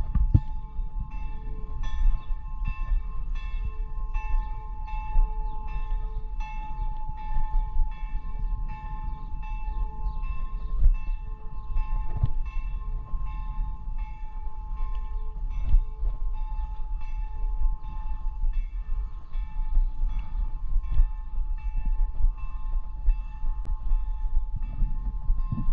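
Pedelec e-bike's electric assist motor whining steadily under way, with a faint regular tick about twice a second over a low rumble.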